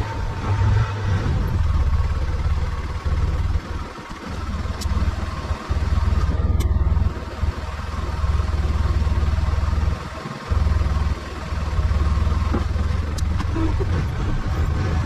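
Arctic Cat side-by-side engine running steadily with a strong low rumble, dipping briefly a few times.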